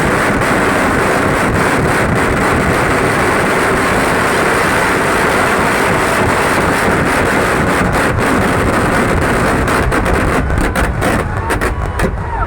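Firecracker barrage: a continuous roar of densely overlapping bangs with sharp cracks through it. It thins into separate cracks about ten and a half seconds in.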